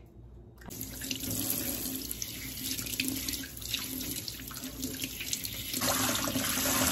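Kitchen faucet spray running in several streams, the water splashing over plant roots and hands into the sink as the soil is rinsed off. It comes on about half a second in and grows louder near the end.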